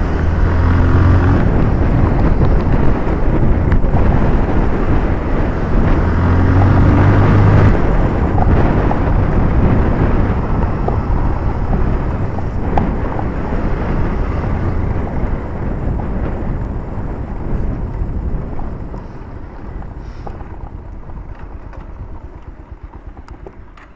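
Motorcycle engine running under way on a gravel road, with wind buffeting the microphone. The revs rise about six seconds in, and the sound fades over the last several seconds as the bike slows.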